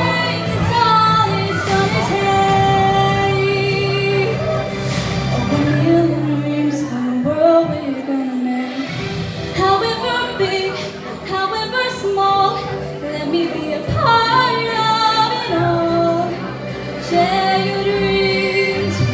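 Female singer singing a slow pop ballad into a microphone over a backing track. The backing's low end drops out for a couple of seconds about seven seconds in, then returns.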